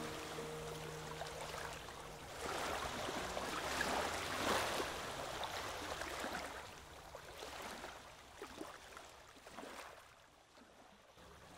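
Soft wash of water that swells and ebbs, then fades out near the end. A few low held music notes die away in the first second or two.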